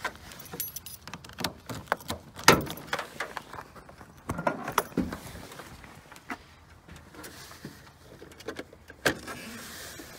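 Irregular clicks, knocks and rustles of hands working around a parked car, with a sharp clack about two and a half seconds in and another near nine seconds.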